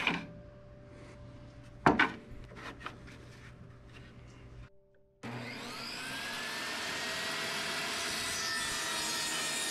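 A sharp knock about two seconds in and a few lighter clicks as the board and miter gauge are handled on the saw table. About five seconds in, the Ryobi benchtop table saw is switched on: its motor whine rises as the blade spins up, then settles into a steady run.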